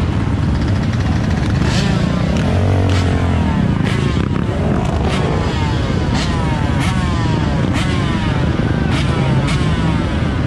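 Several dirt bike and quad (ATV) engines running together at idle and being revved. One rev rises and falls about three seconds in.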